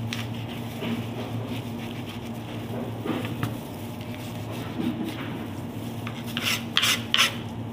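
Knife cutting green bell peppers on a cutting board: quiet slicing and handling of the pieces over a steady low hum, with a few sharp knocks near the end.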